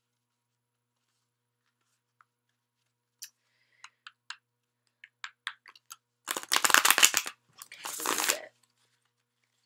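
Tarot cards being shuffled: a few scattered card clicks, then two loud bursts of rapid card flutter near the end, the first the louder.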